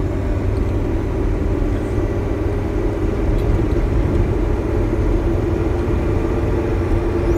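Bus engine and road noise heard from inside the cab while driving at a steady speed: an even low rumble with a steady droning hum.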